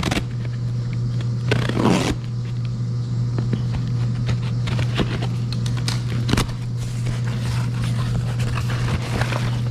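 Packing tape on a cardboard shipping box being slit with a knife and the flaps pulled open, with repeated short scraping, zipping and rustling noises. A steady low hum runs underneath.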